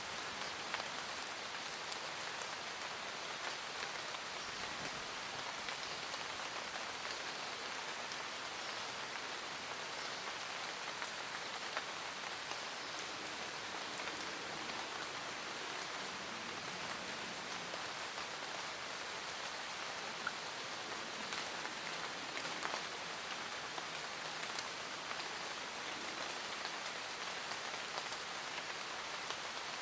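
Steady rain falling in a forest, a constant hiss with scattered drops pattering on leaves and surfaces.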